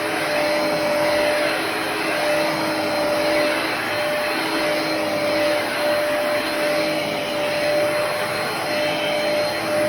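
Hoover PowerDash Pet compact carpet cleaner running steadily, a continuous motor drone with a steady whine in it that falters briefly now and then.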